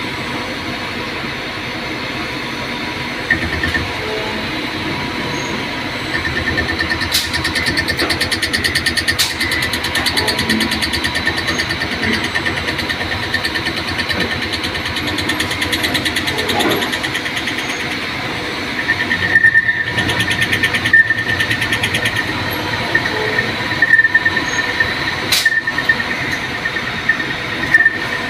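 CNC lathe running with its chuck spinning while a boring bar cuts the chuck jaws, with coolant spraying. A steady machine hum becomes louder, with a fast, fine rattle, from about six seconds in. In the last third a high ringing tone comes and goes with sharp peaks.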